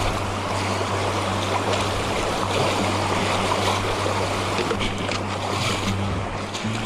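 Rushing river water, a steady loud roar of the Otehake River, with a single low sustained background-music note held underneath.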